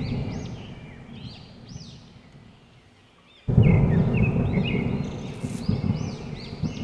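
Nature ambience: repeated bird chirps over a low rumbling noise. It fades down to faint, then comes back abruptly about three and a half seconds in.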